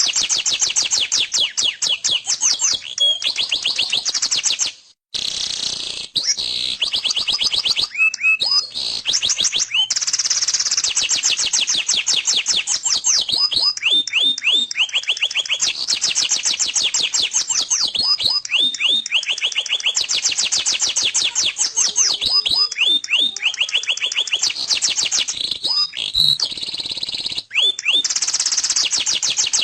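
Domestic canary singing: long rolling trills of very fast repeated high notes, broken up by short downward-sweeping notes, with a brief break about five seconds in.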